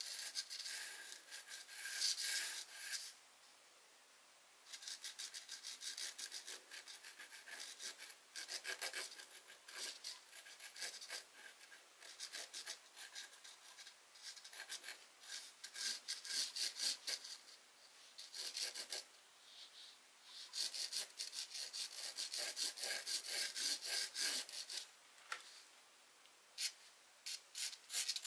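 Charcoal pencil scratching across a canvas sheet in quick, rapid strokes as a boat outline is sketched, with two short pauses where the pencil lifts off.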